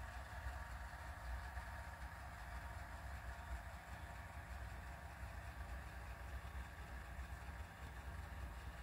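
Steady low rumble of background noise with a faint even hiss above it, unchanging throughout.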